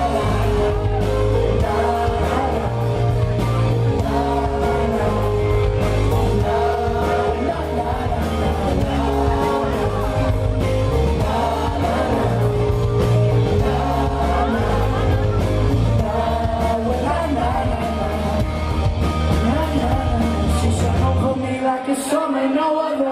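Live band music: a steady repeating bass line under a melody, with singing. The bass drops out briefly near the end.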